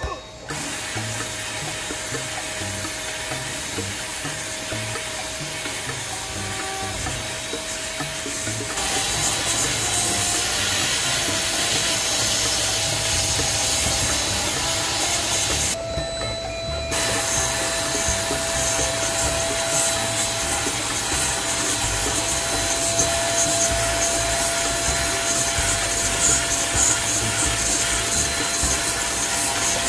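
A sandblast gun blasting abrasive grit onto a motorcycle front brake disc inside a blast cabinet to strip it clean: a steady, loud hiss of air and grit. It gets louder about nine seconds in and breaks off briefly about sixteen seconds in as the trigger is released, with a steady hum underneath.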